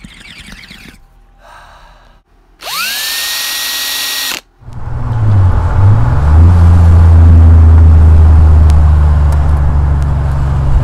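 A power drill spins up with a whine that rises and then holds steady for about two seconds. From about five seconds in, a chopped-top Chevy S-10 pickup's engine runs loud and steady while driving. The exhaust is loud because a hole has formed in it.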